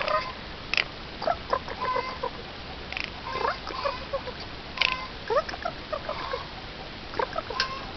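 Eurasian jay calling close up: an irregular run of soft clucking and clicking notes mixed with short gliding chirps.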